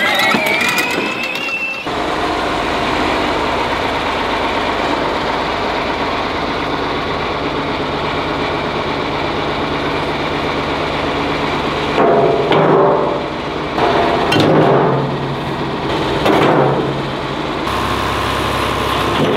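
John Deere loader tractor's engine running at a steady idle, rising and falling a few times in the later part as it works. It opens with the brief whine of a child's electric ride-on toy tractor pulling away.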